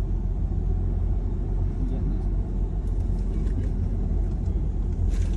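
Steady low rumble of a car driving, the road and engine noise heard from inside the cabin.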